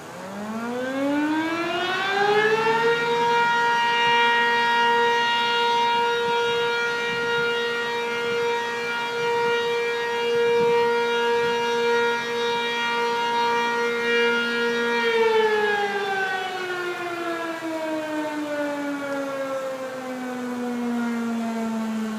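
Sentry 15V1T electromechanical warning siren winding up in pitch over about three seconds, holding one steady wail for about twelve seconds, then winding down with a slowly falling pitch.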